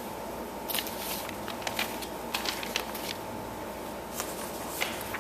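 Sheets of paper being handled and shuffled on a table: irregular rustles and light taps, over a faint steady hum.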